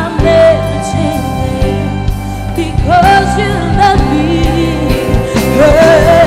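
Live band music with a singer holding long notes with vibrato over sustained accompaniment and drum strikes.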